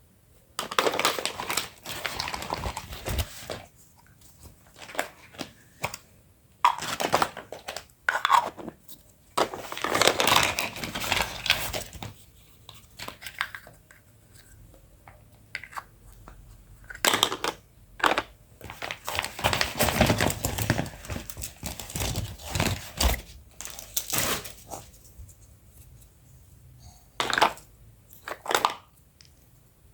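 Plastic packaging crinkling and tearing as a toy kitchen set is unboxed by hand. It comes in irregular bursts of a second or two, broken by quiet gaps and a few short sharp clicks.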